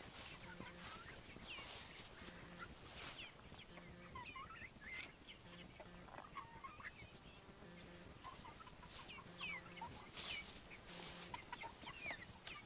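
A flock of two-month-old chickens peeping and clucking softly, many short chirps overlapping throughout, with a few brief bursts of rustling noise.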